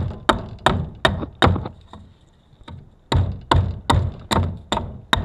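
Hatchet chopping the corners off the end of a 2x2 treated pine stick, shaping a round tenon: a steady run of sharp chops, two to three a second, with a pause of about a second and a half midway.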